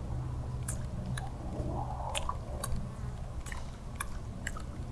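Light, sharp clicks at irregular intervals, often in pairs, from a fishing reel and rod being worked while a stick surface lure is retrieved, over a steady low hum.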